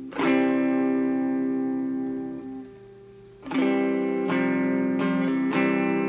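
1964 Fender Telecaster electric guitar strummed through an amp while its rewired volume and tone controls are tested. One chord rings out and fades over about two seconds, then after a short gap a new chord is struck and changed three more times in quick succession.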